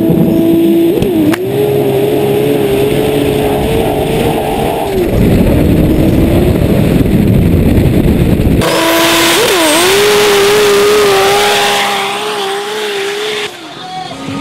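A turbocharged six-cylinder sand drag racing engine runs at full throttle through a run, its pitch dipping briefly a few times at the gear changes. About two-thirds of the way through, a loud hiss of sand spray and wind joins in, and the engine turns fainter near the end.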